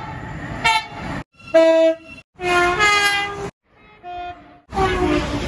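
Train horns sounding in a string of short blasts, each cut off abruptly before the next. The last blast slides down in pitch as the train passes, with the rumble of the train under it.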